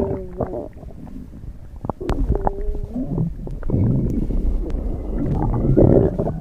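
A stomach growling: irregular low rumbles and gurgles with short gliding squeaks and small pops. It is quieter between about 1 and 2 seconds in, then swells again, loudest near the end.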